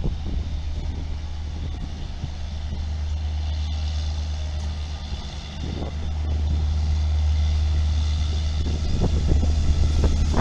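WAP-4 electric locomotive pulling a train away at low speed, its steady low hum growing louder as it comes alongside, with a few sharp knocks near the end.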